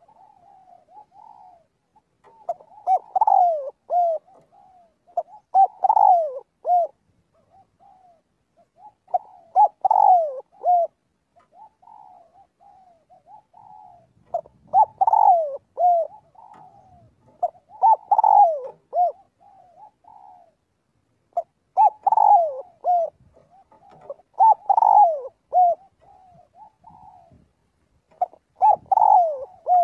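Spotted dove cooing: a loud phrase of several short falling coo notes every three to four seconds, with softer coos in between.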